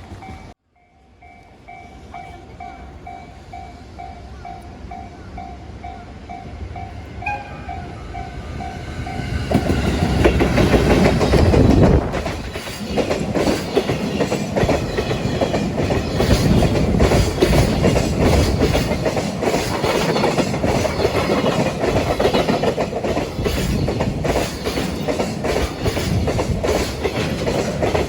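Level-crossing warning bell ringing in a steady, evenly pulsing ding. About nine seconds in, a freight train arrives and passes close by, loud, its wheels clattering over the rail joints in a steady rhythm.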